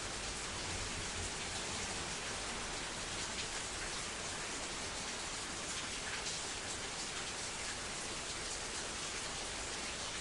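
Steady hiss and patter of falling water, with small drop-like ticks throughout and no single event standing out.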